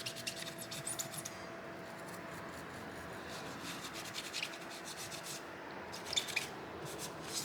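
Rubbing and scratching as dried old thermal paste is cleaned off a graphics card's heatsink and chip, in short bouts in the first second and again about six seconds in.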